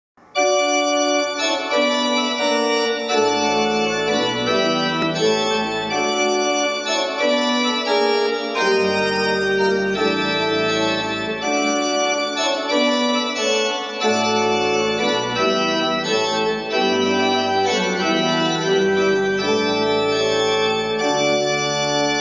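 Organ music: sustained chords with a bass line that moves in and out underneath, starting just after the beginning.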